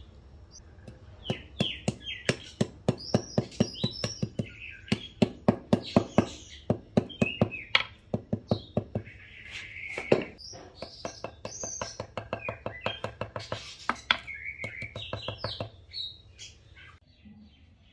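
A long series of sharp knocks, about three a second, like repeated chopping or hammering, with a short break about two thirds of the way through. Small birds chirp over it.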